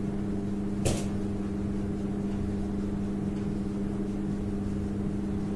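Steady low hum over room noise, with a single short click about a second in.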